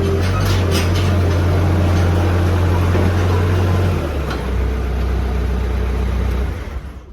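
Skid steer engine running steadily, dropping to a lower idle about four seconds in, then shut off near the end.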